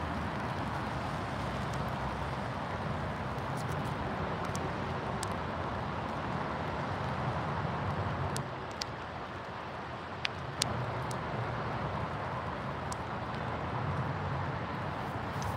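Coach bus's diesel engine running in a steady low drone, with outdoor hiss around it and a few faint clicks about eight to eleven seconds in.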